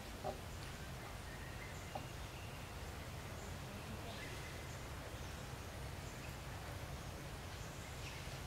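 Quiet outdoor ambience: a steady low background rumble with a few faint, short high chirps and a couple of light clicks.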